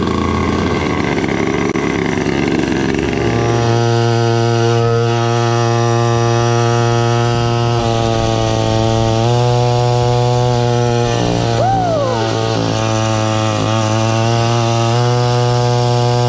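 Turbocharged 50cc two-stroke drift kart engine running hard, a loud steady drone whose pitch steps up slightly a couple of times. A short whistle rises and falls away about twelve seconds in.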